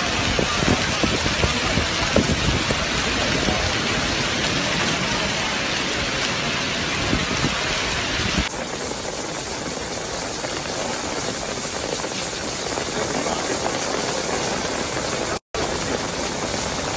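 Heavy rain falling in a dense steady hiss, with a low rumble and small thuds under it in the first half. About halfway through the sound changes abruptly and loses its low end, then drops out for a moment near the end.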